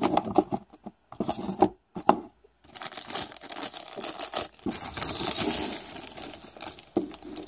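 Hard plastic toy pieces clicking and knocking against each other for the first couple of seconds. Then a thin plastic bag crinkles steadily as it is torn open.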